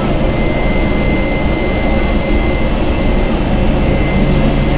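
Taiwan Railways E400-class electric locomotive running at the platform: a loud, even machine noise with a thin steady high tone over it, and a low hum coming up near the end.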